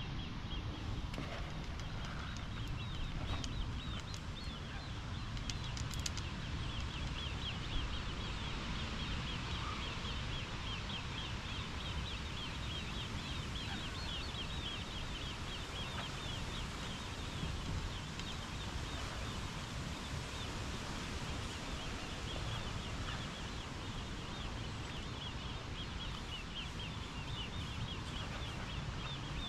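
Outdoor lakeside ambience: a steady low rumble, typical of wind on the microphone, under a continuous high chorus of many tiny rapid chirps from small creatures.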